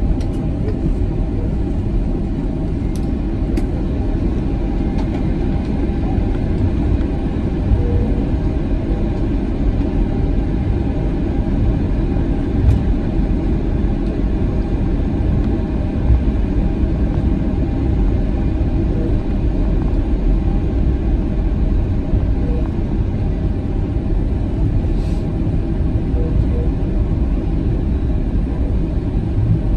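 Steady low rumble inside the cabin of an Airbus A320 taxiing after landing: engine noise and the rumble of the airframe rolling over the taxiway, with a faint steady hum.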